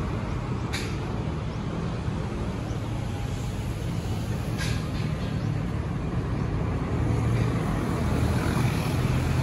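Outdoor urban background noise: a steady low engine rumble, with two short hisses about a second in and again near the middle, growing a little louder near the end.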